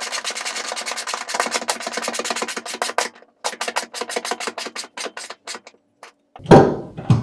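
Ratchet wrench clicking rapidly in short runs as the bolt holding the outlet bracket at the seat mount is tightened. A single louder, lower thud about six and a half seconds in.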